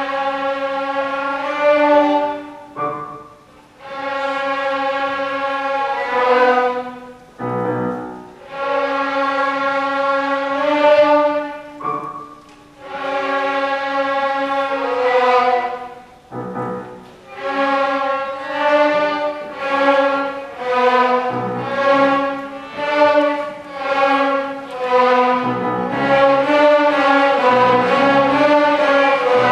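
Youth string orchestra of violins and cellos playing: long bowed notes in phrases broken by short pauses, changing about halfway through to shorter, repeated notes that run together without a break near the end.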